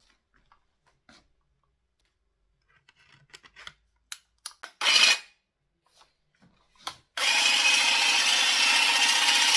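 Einhell cordless hedge trimmer switched on: its motor and reciprocating blades start suddenly about seven seconds in and run steadily and loudly. Before that, scattered plastic clicks and rubbing as the battery pack is handled and fitted into the tool, with one louder short scrape about five seconds in.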